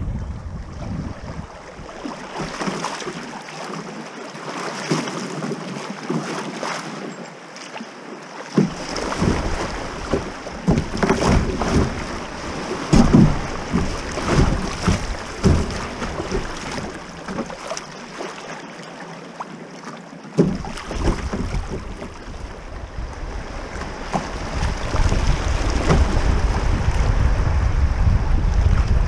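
Rippling river current rushing and splashing against a kayak's hull as it runs a riffle, with sharp splashes clustered in the middle. Wind buffets the microphone with a low rumble at the start and more strongly near the end.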